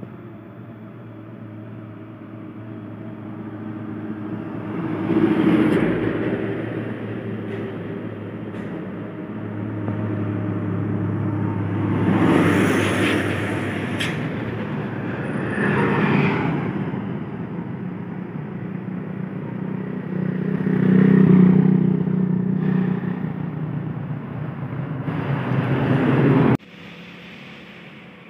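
Diesel truck and buses driving past close by one after another. Each engine rumble swells and fades as the vehicle goes by, then cuts off suddenly near the end.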